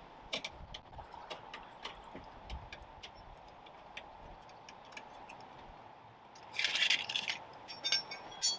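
Light metallic ticks and clicks of a cross lug wrench working on wheel nuts during a tyre change. About six and a half seconds in comes a louder metal rattle and scrape, and near the end a few ringing metal clinks.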